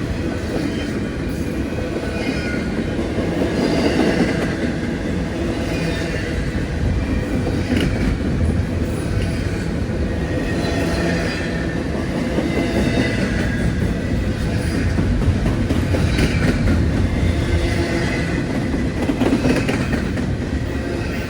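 Railway train passing on the tracks: a steady rumble of wheels on rail, with clatter and some wheel squeal returning every couple of seconds.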